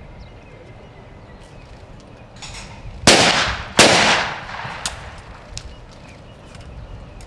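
Shotgun fired twice in quick succession, the shots about three-quarters of a second apart, each followed by a long fading echo. These are the two shots at a skeet double, one shot for each of the pair of clay targets.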